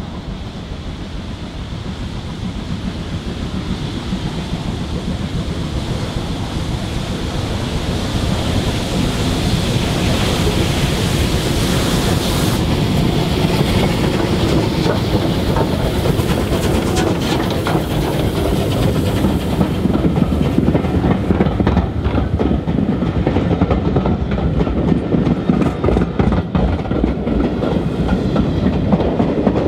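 Bulleid Battle of Britain class light pacific steam locomotive 34081 approaching and passing with its train, growing louder over the first ten seconds or so. Then the coaches' wheels clatter rapidly over the rail joints as the carriages go by close at hand.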